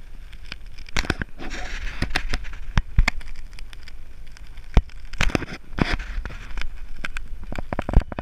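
Car driven on lake ice, heard from inside the cabin: a steady low rumble with irregular sharp knocks and crackles, several of them loud.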